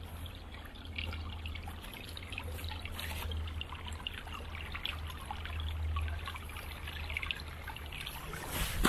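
Shallow creek water trickling over stones and pebbles, a steady babble of small splashes above a low, steady rumble. A louder scuff or splash comes near the end.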